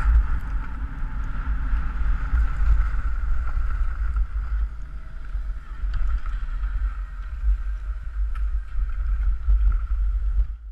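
Wind buffeting the microphone of a body-worn action camera as the skier glides over snow: a loud, steady low rumble with a steady higher hiss above it.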